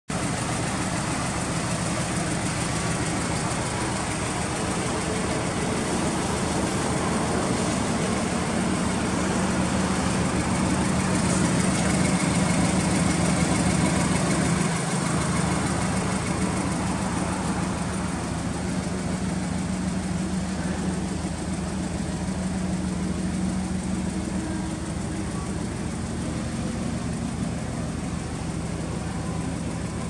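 Turbocharged flat-four engine of a GC8 Subaru Impreza WRX Type RA STi Version IV idling steadily, a little louder about halfway through.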